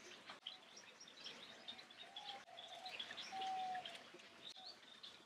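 Faint chirping and twittering of many small aviary birds, with a brief whistled note held about halfway through.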